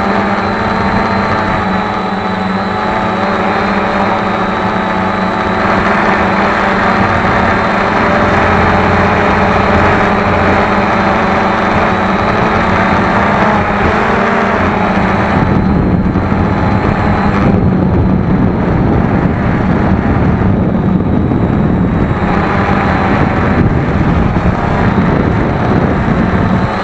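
Cheerson CX-20 quadcopter's brushless motors and propellers whining steadily in flight, with gusty wind rumbling over it. About halfway through, the higher part of the whine dims and the low wind rumble thickens.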